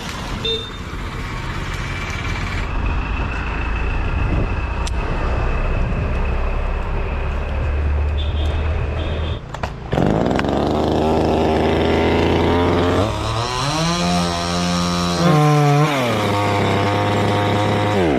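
Small two-stroke chainsaw running at low speed, then revved up about ten seconds in and held at high speed, its pitch wavering up and down in the last few seconds.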